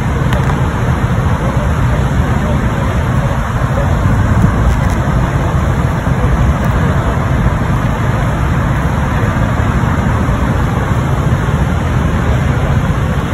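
Steady road traffic noise with a heavy low rumble, no single vehicle or event standing out.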